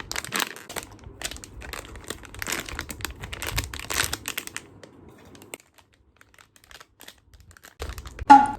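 Plastic packaging of a blind-box collectible being crinkled and torn open by hand, a dense crackle for about four and a half seconds that then dies away. A short voiced exclamation near the end is the loudest sound.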